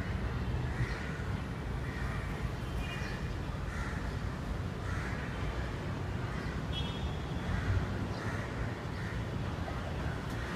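Crows cawing repeatedly, about one call a second, over a steady low urban rumble.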